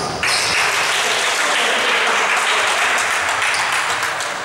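Applause breaking out just after a futsal goal, starting suddenly about a quarter second in.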